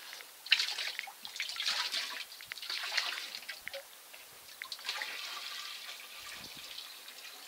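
Water sloshing, trickling and dripping in a plastic gold pan as it is swirled and tilted over a tub of water, washing silt off the concentrate and settling the heavies. A sharper splash comes about half a second in.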